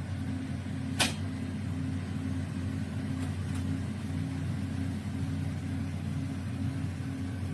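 COSORI Turboblaze air fryer running, its DC fan motor giving a steady low hum. A sharp click comes about a second in, and two faint ticks follow a couple of seconds later.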